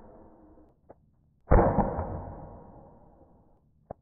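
Byrna LE .68 caliber CO2 launcher firing a single shot about a second and a half in: a sharp report followed a fraction of a second later by a second knock as the ball strikes the gel target, then a slow die-away. A small click comes just before the shot and another near the end.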